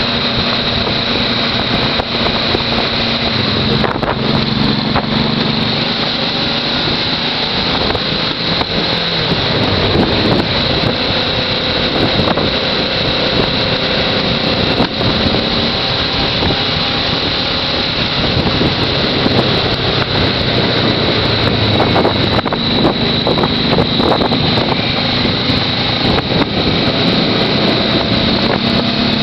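Motorcycle engine running under way with steady wind rush on a bike-mounted microphone. The engine note rises and falls with the changes in speed.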